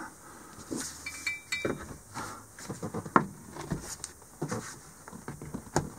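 Irregular light clicks and taps of hands and a handheld camera moving against the fittings of a vehicle cab, with a brief high clink about a second in.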